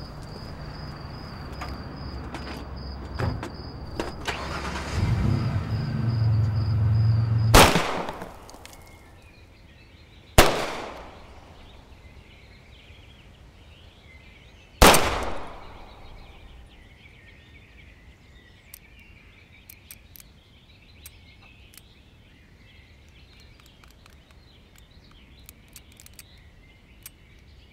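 Three semi-automatic pistol shots a few seconds apart, the last leaving a stovepipe jam with the spent case caught in the ejection port, which the instructor puts down to limp-wristing. Before the shots, a steady insect trill under a low rumble that swells for several seconds; after them, faint birdsong.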